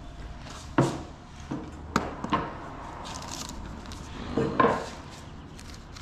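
Wooden cutting boards knocking and clattering as they are set down and shifted about. There are about six sharp knocks, the loudest about a second in and a pair near the end.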